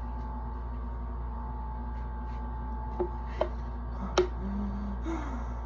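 Steady low background hum with a few faint clicks a little past the middle, and a short, soft low-pitched vocal sound near the end.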